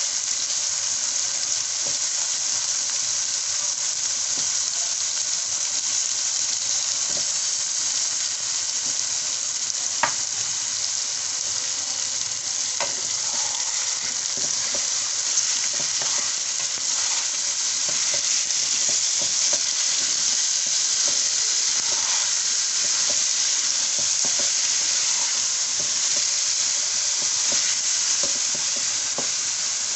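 Chicken pieces, sliced onions and potato cubes sizzling in hot oil in a metal karahi, with a wooden spatula scraping and knocking against the pan as they are stirred. One sharp tap about ten seconds in.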